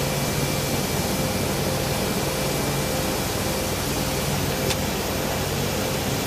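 Steady rushing noise of a running engine, with a faint high whine and a low hum. A single faint click comes about three-quarters of the way through.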